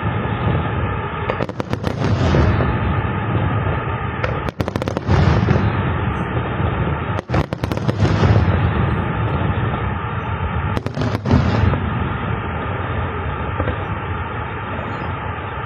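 Fireworks display: a dense, continuous rumble of shell bursts and crackle, with four sharper cracks standing out every three seconds or so.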